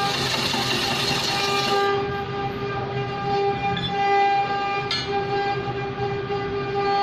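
Large log turning on a wood lathe while a long-handled flat scraper cuts it: a steady pitched whine over a hiss of shavings. The hiss is strongest in the first two seconds.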